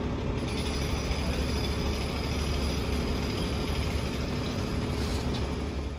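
Steady outdoor street ambience: a constant low rumble with traffic noise and no distinct events.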